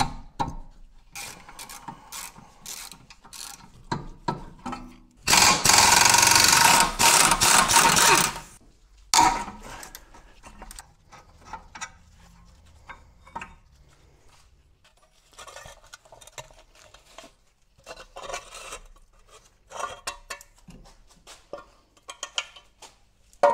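Front brake of a VW T5 being dismantled: scattered clicks and clinks of metal parts and tools. About five seconds in, a pneumatic wrench runs loudly for about three seconds, undoing the brake bolts.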